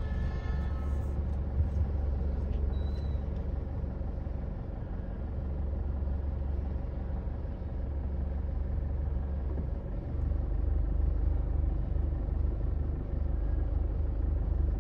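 Low steady rumble of road traffic as motor scooters ride through a wet intersection, growing louder about ten seconds in.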